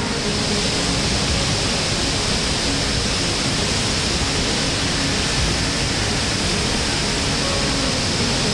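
Flood-swollen, muddy river rushing in a steady, loud, unbroken wash of turbulent water: the river is running close to bursting its banks after days of heavy rain.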